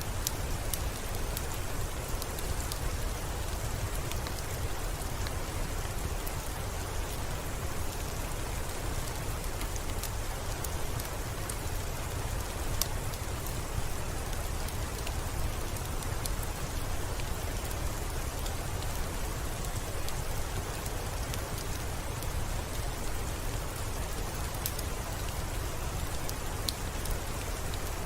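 Steady rain falling, with many individual drops ticking sharply over an even hiss and a constant low rumble underneath.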